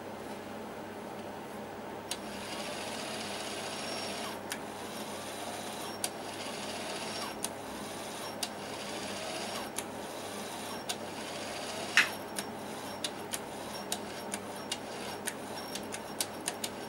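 Small motor in an opened VHS deck mechanism whirring steadily, stepping up about two seconds in, with sharp clicks now and then that come faster near the end and one loud click about twelve seconds in.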